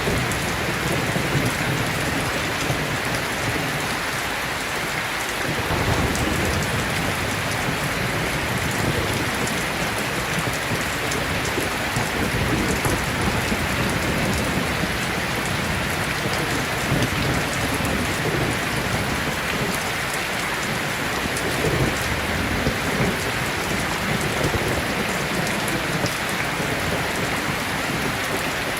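Steady, dense rain falling, with a low rumble rising and falling underneath.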